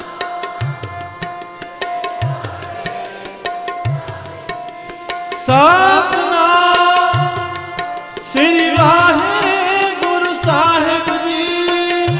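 Kirtan accompaniment: harmonium holding a melody over tabla, with a deep bass stroke about every second and a half and quick light strokes in between. About halfway through, a singer's voice comes in, sliding up into long wavering held notes over the harmonium.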